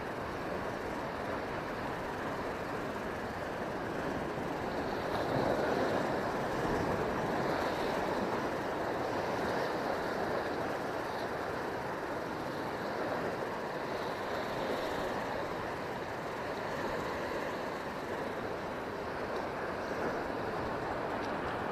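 Sea surf breaking and washing over rocks, a steady rushing noise that swells about five seconds in.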